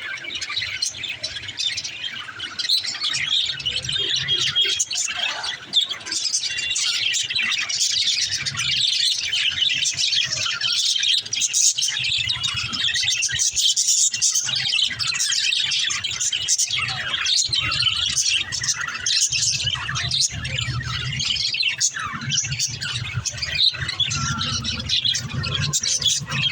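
Budgerigars chirping and chattering without pause, many quick, high calls overlapping, with a low rumble coming and going underneath.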